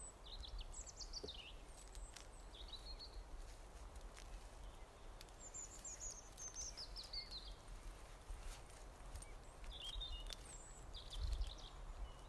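Small songbirds singing in the woods: four or five short, high, chirpy phrases that fall in pitch, the longest lasting about two seconds around the middle, over a faint steady hiss.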